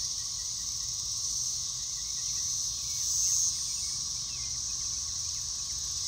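A chorus of many cicadas singing together: a steady, high-pitched drone that swells slightly about three seconds in.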